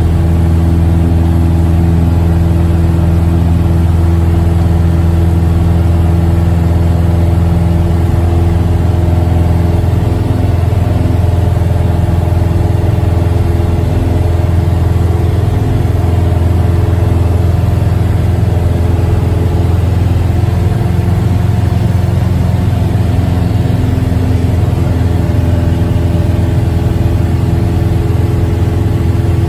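Single-engine piston airplane's engine and propeller heard inside the cockpit, running steadily with a loud, even drone in flight after takeoff. The tone shifts slightly about eight to ten seconds in, then holds steady.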